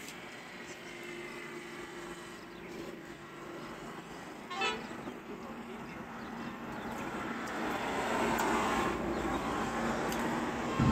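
Motor vehicle noise with a horn-like tone, growing steadily louder toward the end, with a short rising-and-falling sound about halfway through.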